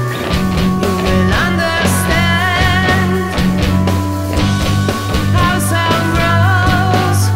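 Rock music soundtrack with guitar, bass and a steady beat.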